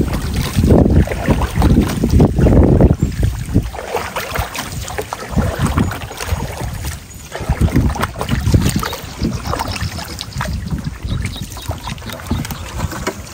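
Gusty wind buffeting the microphone in uneven low surges, strongest in the first few seconds.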